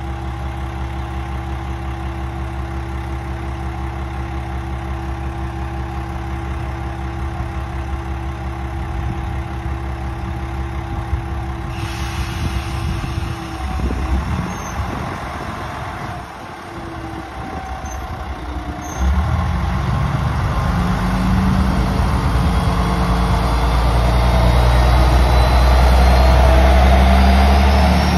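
Diesel railcar engine running steadily at idle. About two-thirds in it gets much louder and keeps building, with a whine rising in pitch near the end.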